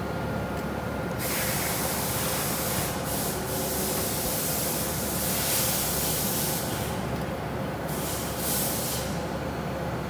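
Vertical injection molding machine running through a molding cycle: a steady low machine hum with loud hissing that starts about a second in, lasts several seconds, and returns briefly near the end.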